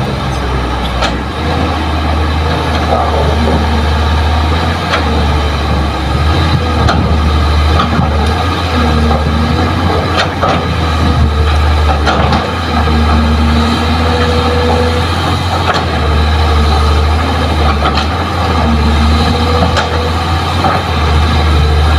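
Kobelco hydraulic excavator digging into a soil face, its diesel engine running under load with a low drone that swells and eases every few seconds. A few knocks of earth and rock break through.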